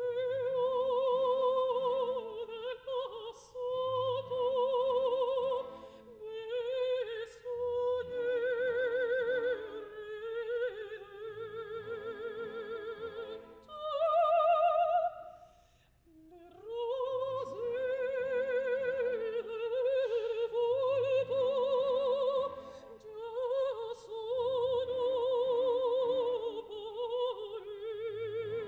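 A female opera singer sings an aria with a wide vibrato over a soft orchestral accompaniment. She pauses briefly about halfway through, then sings on.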